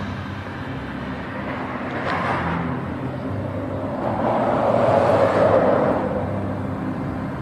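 Street traffic noise over a steady low hum, swelling and fading as a vehicle passes about four to six seconds in.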